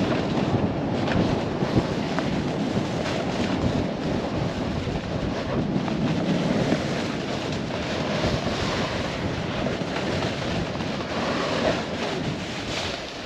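Wind rushing over the microphone with the steady hiss of a snowboard sliding and carving over snow during a fast run, with a few small bumps and scrapes.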